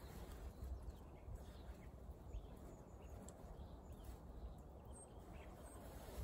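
Faint birdsong: scattered short chirps of small songbirds over a low, steady rumble.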